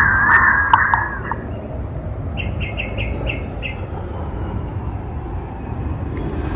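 Thick-billed green pigeon singing: a wavering, warbling whistle that stops about a second and a half in, followed a second later by a brief run of short, higher notes.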